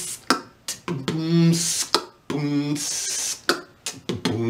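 A man beatboxing a drum pattern with his mouth: sharp clicks like rimshots, short hummed low beats, and hissed cymbal-like noises in a loose rhythm.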